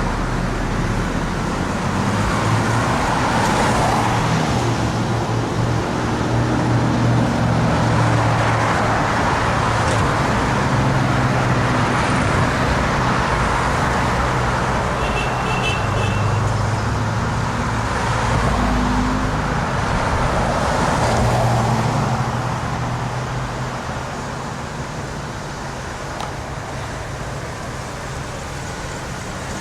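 Road traffic: motor vehicles passing, the noise swelling and fading several times, then settling a little quieter near the end.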